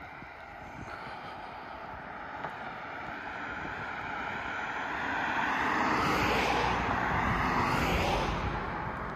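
A vehicle driving past on the road. Its noise builds for several seconds, is loudest from about six to eight seconds in, then begins to fade.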